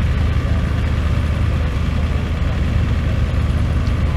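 Antique tractor engine idling steadily, a deep, even rumble with no revving.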